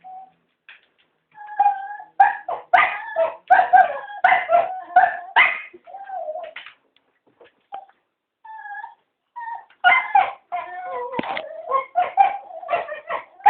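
Cocker spaniels whining and barking in excited, wavering calls, in two dense flurries with a sparser lull in between: dogs begging to be taken for a walk.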